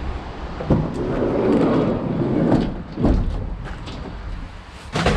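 Knocks and scraping as scrap items are shifted and stacked in the back of a van: a dull knock, a couple of seconds of dragging or scraping, then further knocks.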